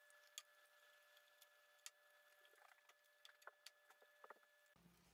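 Near silence: a faint steady hum with scattered light taps and clicks from a paint sponge being dabbed into wet paint on a foam plate. The hum cuts off suddenly near the end.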